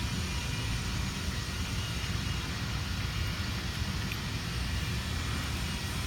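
Steady low rumble of background machinery or air noise, unchanged throughout, with one faint click about four seconds in.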